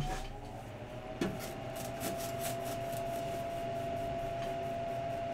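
Electric blower motor, likely the room heater's, whirring up to speed: its pitch rises, then holds as a steady hum. A couple of light clicks come from cards being handled.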